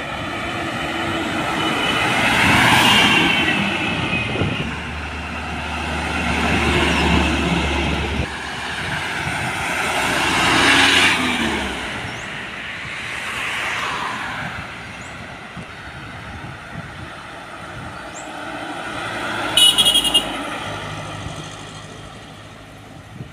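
Cargo trucks driving past one after another on a highway, the engine and tyre noise of each swelling and fading as it goes by. A short horn blast sounds near the end.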